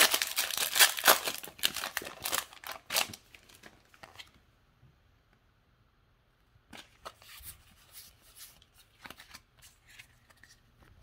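Foil wrapper of a Pokémon booster pack crinkling and tearing open for the first three seconds or so, then, after a short quiet gap, the soft slides and ticks of trading cards being handled.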